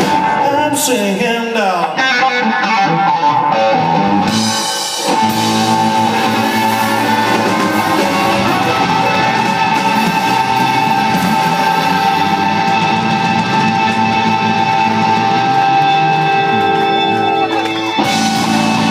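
Live rock band playing electric guitar, bass guitar and drum kit. A couple of pitch slides falling downward with crashing cymbals, then a long held chord that rings steadily for over ten seconds, with a fresh hit near the end.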